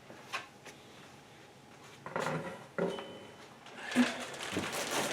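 Parts and packaging being handled: a few light knocks and clatters, then plastic packaging rustling and crinkling from about four seconds in.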